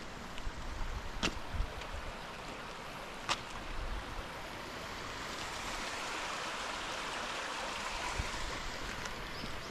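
Water running in a small stone-lined channel: a steady rushing hiss that swells louder in the second half. A couple of footsteps tap on the path early on.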